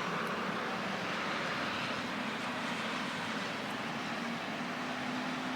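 Steady outdoor rush of a blizzard with city traffic, with a faint, even low hum joining in about halfway through.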